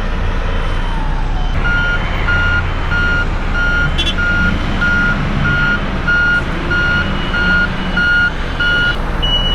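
Backup alarm of a construction vehicle beeping about twice a second over a steady engine rumble; near the end a second, higher-pitched reverse beeper takes over.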